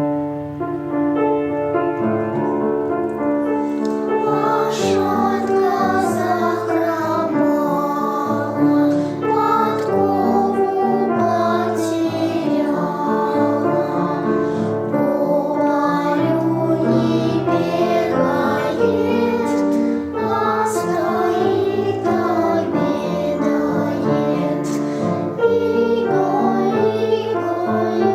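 A children's song sung over piano accompaniment. The voice comes in after a short instrumental introduction.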